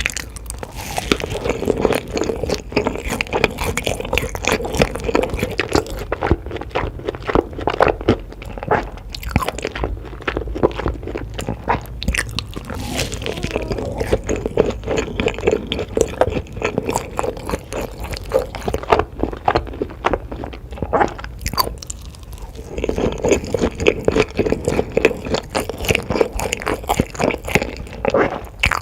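Close-miked eating sounds: crunchy food being bitten and chewed in a dense run of crisp crunches, with a short lull a little past the two-thirds mark.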